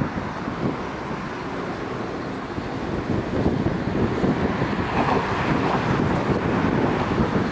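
Steady rush of wind on the microphone and road noise from a moving vehicle, mixed with Korail electric commuter trains running alongside; it grows a little louder about halfway through.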